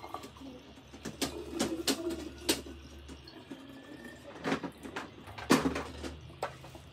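Water being poured from a plastic measuring cup into a clear plastic bottle, with several sharp clicks and knocks of plastic.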